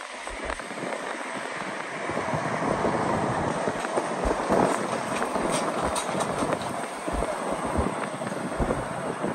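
Road noise heard from a car moving in city traffic on wet pavement: a steady hiss of tyres and passing vehicles that grows louder about two seconds in, with low wind buffets on the microphone.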